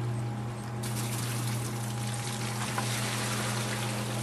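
Sump pump humming steadily while its discharge gushes water into a 5-gallon bucket; the splashing of the water grows suddenly louder about a second in.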